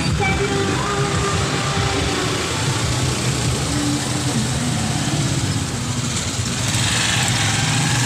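Engines of a slow motorcade passing close by: cars, a pickup and motorcycle tricycles running at low speed in a steady mix.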